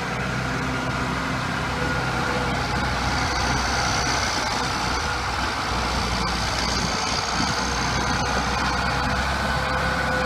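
1999 Case IH MX110 tractor's six-cylinder diesel engine running steadily while the tractor drives, with a faint steady whine above the engine note.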